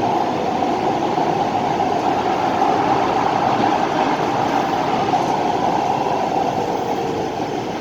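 Steady running noise of a moving LA Metro A Line light-rail car heard from inside the car: a constant rumble with a strong mid-pitched hum, easing slightly near the end.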